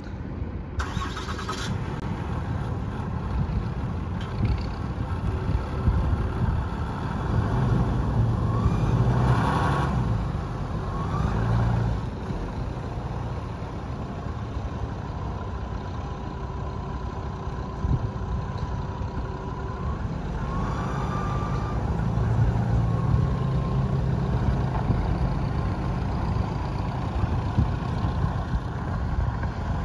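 2019 Ram 3500 cab-and-chassis truck driving slowly, its engine running with a steady low rumble that swells twice, about a third of the way in and again past two-thirds.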